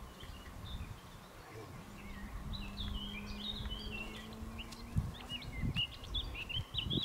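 Small birds chirping and twittering in quick, repeated short calls, busiest from about two seconds in, over a low outdoor rumble. A faint steady low hum runs for a few seconds, and there is a dull thump about five seconds in.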